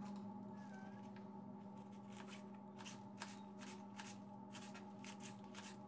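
Kitchen knife chopping green onion tops on a wooden cutting board. Short, light cuts come about three a second from about two seconds in, over a low steady hum.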